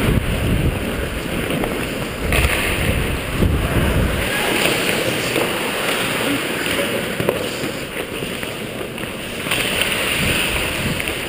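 Ice hockey skates scraping and carving on rink ice close to a helmet-mounted camera, a continuous rushing hiss that swells and eases as the skater strides and turns.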